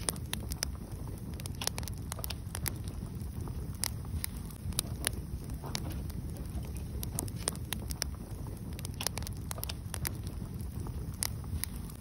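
Wood fire burning, with frequent irregular crackles and sharp pops from the burning logs over a steady low rumble.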